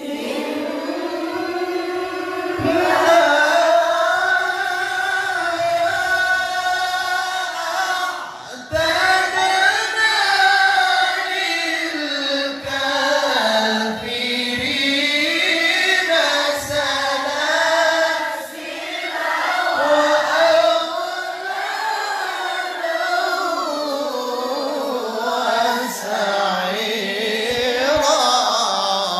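A group of female students reciting the Quran together in the melodic mujawwad style. The voices sing long, drawn-out phrases that rise and fall in pitch, with brief pauses for breath between them.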